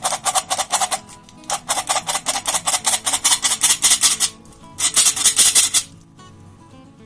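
Hand-operated metal flour sifter clicking rapidly as it is worked, sifting flour into a pot of milk, in three runs with short pauses between them.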